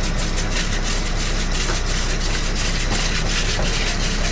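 Crab workboat's engine running steadily, a constant low drone under wind and water noise, with a few faint knocks.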